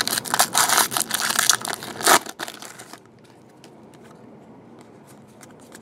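Foil trading-card pack wrapper crinkling and tearing as it is ripped open by hand, a dense run of crackles for about three seconds, loudest just before it stops. After that only faint handling ticks remain.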